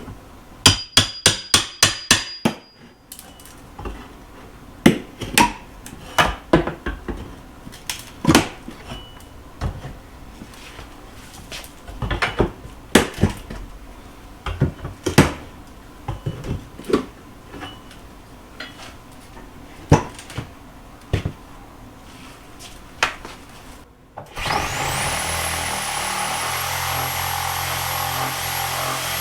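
Hammer strikes and prying knocks as wood trim and paneling are pulled off a wall: a quick run of about eight hammer blows near the start, then scattered knocks and cracks. Near the end, after a brief dropout, a steady motor noise with a high whine takes over.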